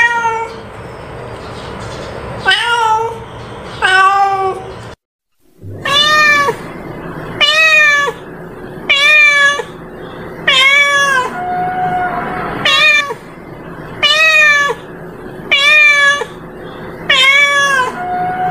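Long-haired orange-and-white domestic cat meowing over and over, about one meow every second and a half, each rising and then falling in pitch. A brief silence falls about five seconds in.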